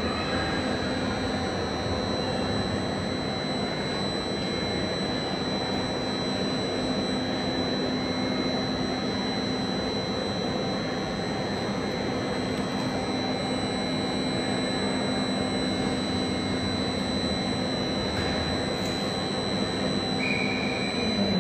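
Electric train equipment running steadily: an even mechanical whirr with a constant high-pitched whine and a low hum, not rising or falling in pitch or loudness.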